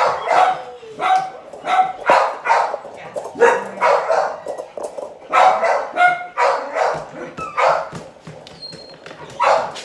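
A dog barking repeatedly, about two barks a second, with short breaks near the middle and near the end.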